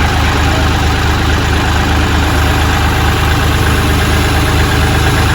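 Kioti CK3510SE compact tractor's three-cylinder diesel engine idling steadily.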